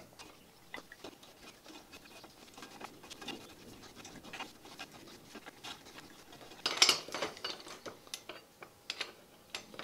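Faint clicks and scraping of steel hand tools on steel: a tap worked by hand at the drill press. About seven seconds in comes a louder, brief metallic clatter as the steel speed wrench is handled on the vise.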